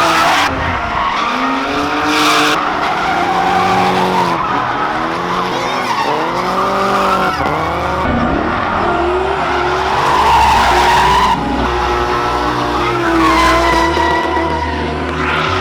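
Drift car engine revving hard up and down again and again as the throttle is worked, with tyres squealing and screeching through the slides.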